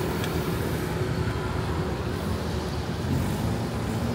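Steady road traffic noise: the even hum of cars running past.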